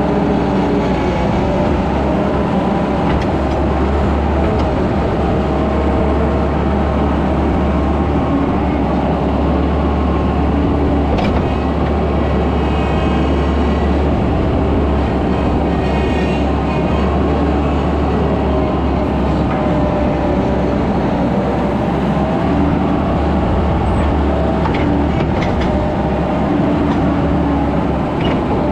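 Skid steer engine running steadily under work, with a few brief clanks.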